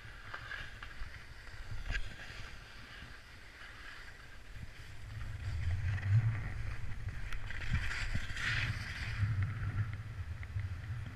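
Skis sliding and scraping over snow, with wind rumbling on the camera microphone. The rumble grows louder about halfway through, and there is a stronger burst of snow hiss a little later.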